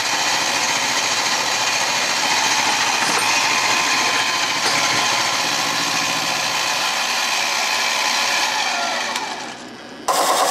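Mini mill's end mill cutting a steel block, squaring up its side: steady machining noise from the spindle motor and the cut, which dies away near the end as the spindle stops.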